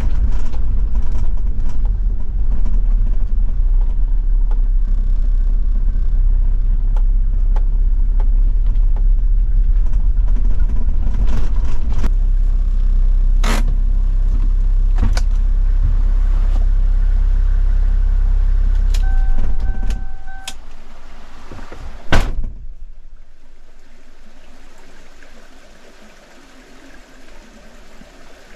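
Land Cruiser 70's diesel engine running with a heavy low rumble and a few sharp clicks, then switched off about two-thirds of the way through, just after a short two-note electronic chime. A single loud thump follows a couple of seconds later, and the level falls away to a soft background hiss.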